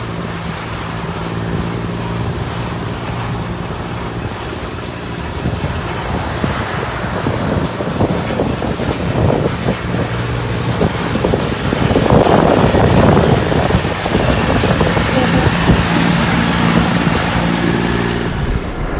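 Kubota L2402DT-M tractor's diesel engine running at a steady speed. In the middle a louder rushing of wind across the microphone covers it, and the engine comes back near the end as the tractor is drawn alongside.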